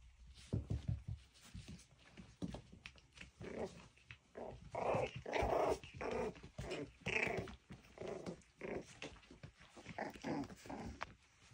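Miniature schnauzer puppies play-fighting, growling in a run of short, high little calls that are thickest in the middle, after a few low bumps near the start.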